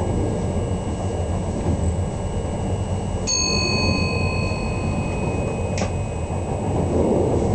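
Steady rumble of an NS train running along the track. About three seconds in, a single bell-like chime rings out and fades over a second or two, and a short click follows near six seconds.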